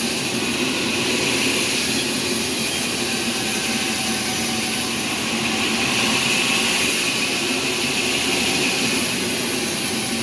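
Sawmill machinery running with a steady, unbroken noise.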